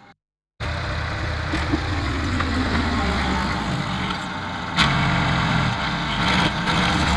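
An engine running steadily, with a sharp knock about five seconds in.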